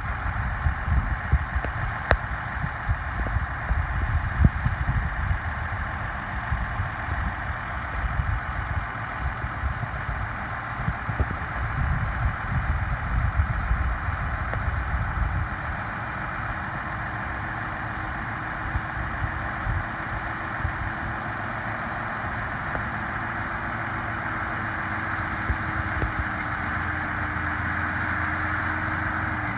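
Heavy farm machinery engine running steadily, with a low rumble that eases about halfway through, leaving a faint steady hum.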